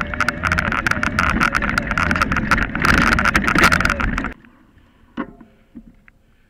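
Rattling and knocking of a camera mounted on a bike riding a rough grassy trail, dense sharp clicks over a steady hum. It cuts off abruptly about four seconds in, leaving a much quieter background with a couple of faint knocks.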